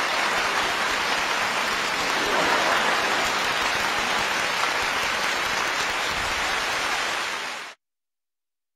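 Studio audience applauding steadily, a dense even clapping that cuts off abruptly near the end.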